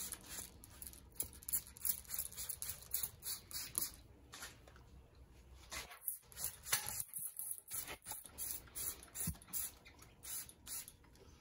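Hand trigger spray bottle spritzing cleaner onto damper parts to flush out metal shavings: short hissing sprays in quick succession, a few a second, with two brief pauses.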